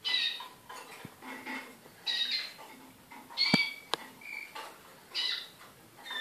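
Malinois (Waterslager) song canaries giving short bursts of high chirping and song phrases, every second or two. Two sharp clicks come about half a second apart a little past the middle.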